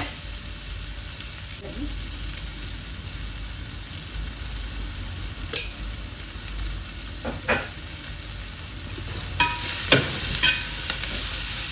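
Chopped vegetables sizzling steadily in hot oil in a large metal uruli, while a metal slotted spatula scrapes and knocks against the pot as they are stir-fried. The knocks come as a few sharp clicks past the middle and grow more frequent near the end.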